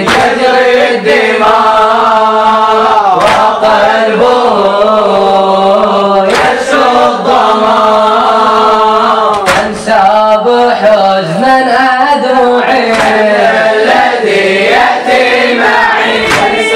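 A group of male mourners chanting a latmiyya lament in unison, with a sharp collective chest-beat (latam) about every three seconds.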